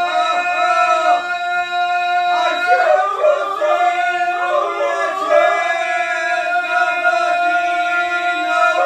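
Group of men singing ganga, the unaccompanied traditional polyphonic singing of the Dalmatian hinterland and Herzegovina: some voices hold a steady drone note while another voice bends and wavers around it.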